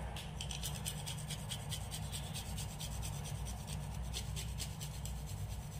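Whole almonds being grated on a small handheld metal grater, a steady run of repeated rasping strokes.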